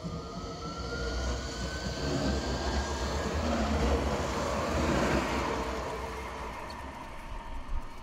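Light-rail tram passing close by: the whine of its electric traction motors rises in pitch as it accelerates over the first few seconds, then the wheel and rail rumble swells to a peak about halfway and fades away as it goes past.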